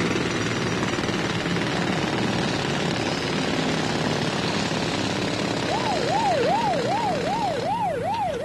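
A dense din of city construction and traffic noise with a rapid hammering like a jackhammer. From about six seconds in, an emergency vehicle siren joins, wailing up and down quickly, about three times a second.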